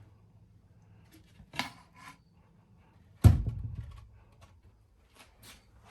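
Wooden knocks from cabinet work in a small room: a sharp knock about one and a half seconds in, then a heavy thud with a short low boom a little after three seconds.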